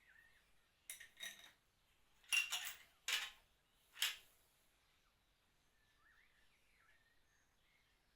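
Steel tools or parts clinking and clattering as they are handled: about five sharp metallic clinks over roughly three seconds. Faint birdsong follows.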